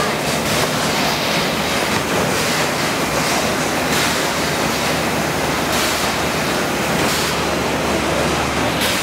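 Steady fish-factory floor noise: a constant rushing noise over a low machine hum, with occasional knocks and clatter.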